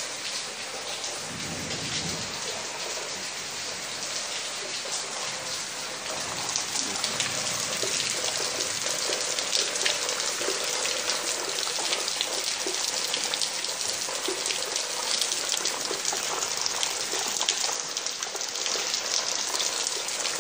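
Heavy rain falling on wet brick paving: a steady hiss with a dense patter of drops that grows louder about six seconds in.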